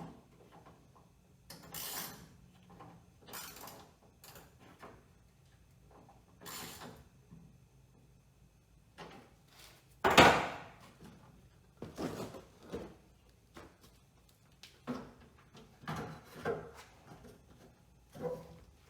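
Irregular knocks, clicks and scrapes of a car door panel and its metal mounting clips being handled and adjusted by hand, with one louder knock about ten seconds in.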